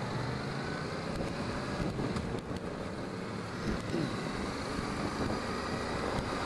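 Honda NC700X's parallel-twin engine pulling away and accelerating through a turn, with wind noise on a helmet-chin microphone.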